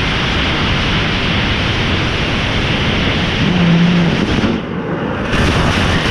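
Nitrous oxide/ethanol liquid-bipropellant rocket engine firing on a static test stand: a loud, steady rush of noise. It drops off about four and a half seconds in, then comes back briefly before falling away again at the end.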